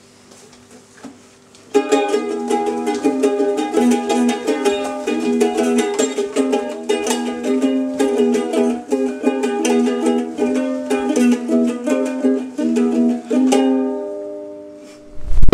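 Ukulele playing a plucked tune, starting about a second and a half in and fading out near the end. A short, loud, low thud comes right at the very end.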